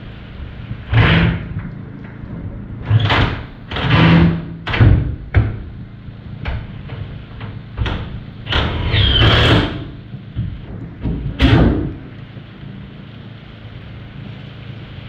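Windy rainstorm against a shed and its leaking window: a steady hiss with a string of loud, sudden surges as gusts buffet the walls and glass.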